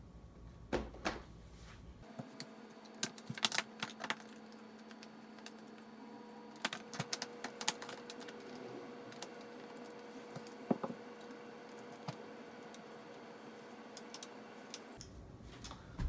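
Handling noise as a prosthetic leg is put back on: scattered light clicks and taps, coming in small clusters.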